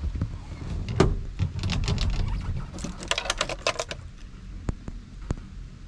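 Keys jingling and clicking as the ignition key of a 1980 Toyota Land Cruiser is fitted and turned to on, a quick run of light metallic clicks and rattles ahead of a cold start; the engine is not yet running.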